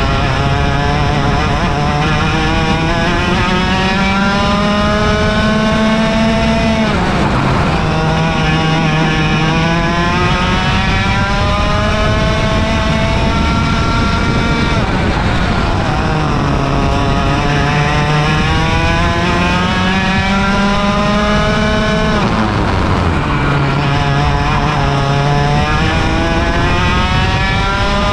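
Onboard sound of a 100cc two-stroke kart engine at racing speed. Its pitch climbs steadily along each straight, then drops sharply when the driver brakes for a corner, about seven, fifteen and twenty-two seconds in, before climbing again.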